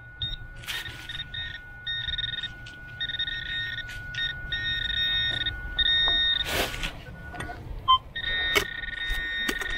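Electronic tones from a metal detector and a handheld pinpointer sounding over a shallow buried metal target. A steady beep runs underneath, and a higher tone cuts in and out in stretches. A few shovel strikes into leaf-covered soil break in, the loudest about two-thirds of the way through.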